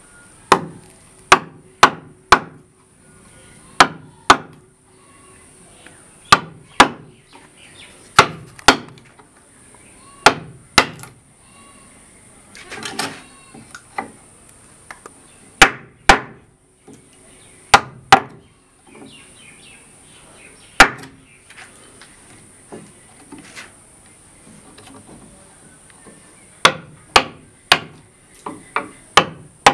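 Hammer striking a steel chisel into a wooden door frame, chiselling out a recess: sharp knocks, mostly in pairs about half a second apart, with short pauses between. A softer scraping of the chisel in the wood about halfway through.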